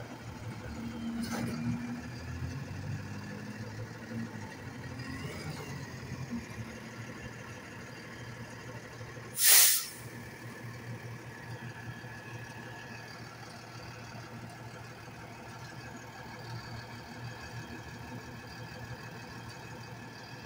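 Automated side-loader garbage truck's diesel engine idling steadily, with a short, loud air-brake hiss about halfway through.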